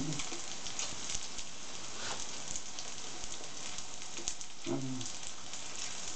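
Grated potato-and-chicken pancakes frying in hot oil in a pan: a steady sizzle with crackling pops throughout. A brief voice sound comes about three-quarters of the way in.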